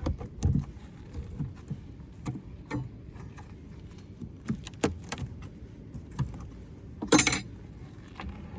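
Scattered clicks and knocks of wooden Layens hive frames being handled and shifted in the box, with one louder, brief rasping burst about seven seconds in.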